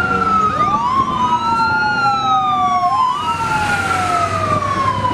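Fire engine siren wailing: each wail rises quickly in pitch and then falls slowly over about three seconds. A second wail overlaps out of step with the first.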